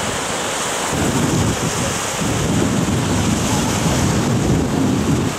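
Small sea waves breaking and washing up a sandy beach, a steady rush of surf, with wind rumbling on the microphone that grows heavier from about a second in.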